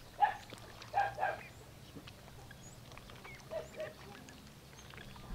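Domestic ducks quacking on the water: three loud quacks in the first second and a half, then two softer ones about three and a half seconds in.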